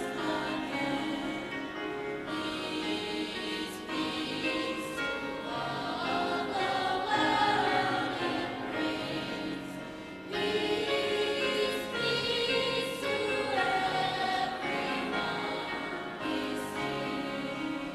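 High school concert choir singing, with one phrase ending about ten seconds in and a louder one starting.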